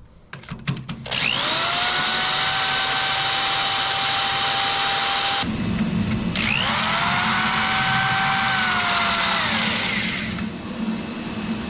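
Handheld power tool drilling into a hard broken bolt with a diamond-tipped tile bit. It spins up with a rising whine about a second in and runs steadily. About halfway through a lower grinding comes in as the bit bites, then the motor spins up again and winds down near the end.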